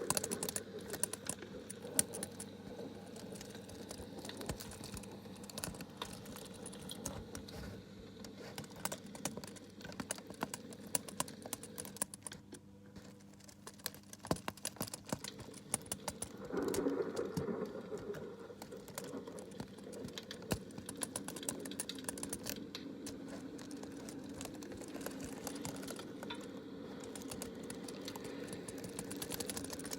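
ASMR tapping: many rapid, light, irregular clicks and taps on small hard objects, over a steady low background hum, a little louder about seventeen seconds in.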